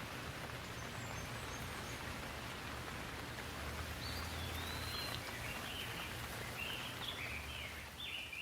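Steady rain falling on leaves. From about halfway through, a bird calls in a quick run of short chirps.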